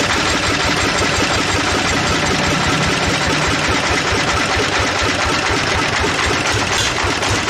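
Band sawmill running steadily, a loud continuous machine noise with a fast mechanical rattle.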